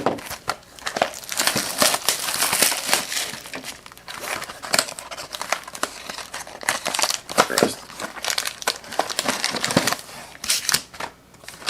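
Plastic wrapping on a sealed trading-card hobby box and its packs crinkling and tearing as it is pulled off by hand: a dense run of crackles and sharp clicks with a couple of short lulls.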